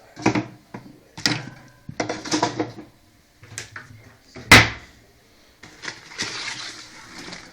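A series of knocks and rattles, with one loud knock about four and a half seconds in and a rustling stretch near the end.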